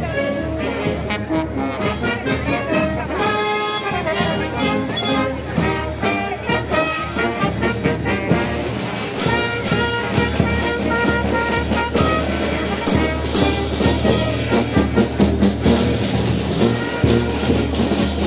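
Brass band playing live, with trumpets and trombones carrying the tune over a sousaphone bass. The beat grows sharper and brighter about halfway through.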